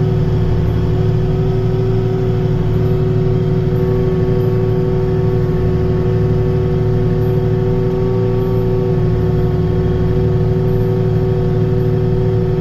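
Farm tractor's engine running steadily under load at a constant pitch, heard from inside the cab as a continuous drone.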